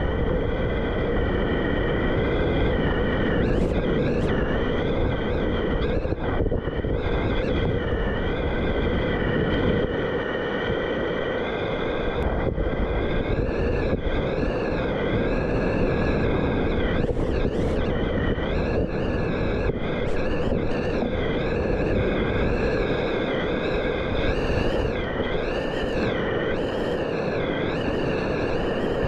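Steady, loud rush of whitewater rapids heard close up from a kayak, with wind buffeting the microphone.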